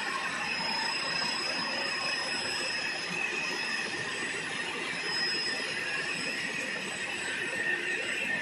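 Pet-treat extrusion line running: extruders, electric motors and a mesh conveyor give a steady mechanical noise with a thin, high, steady whine.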